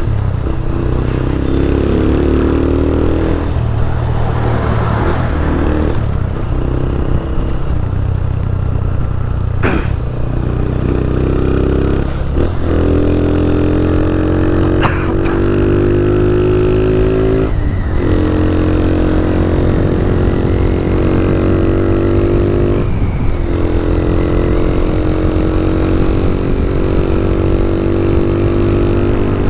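Motorcycle engine accelerating through the gears: its pitch climbs steadily, drops sharply at three upshifts, and climbs again after each. Two brief sharp ticks are heard during the run.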